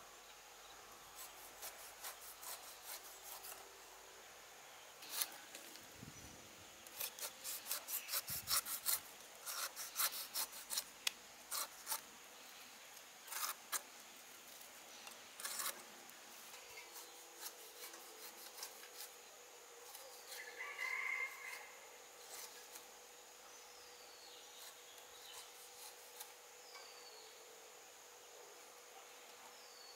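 Kitchen knife cutting and scraping the skin off a whole pineapple: runs of short rasping strokes, densest in the first half, over a faint steady hum of insects.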